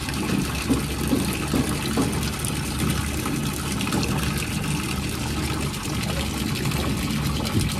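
Water running and splashing steadily in a lion's shallow tub pool as a spray of water pours in.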